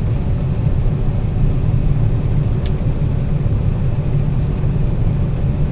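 Combine harvester running steadily while cutting soybeans, a low, even drone. A single faint tick sounds about two and a half seconds in.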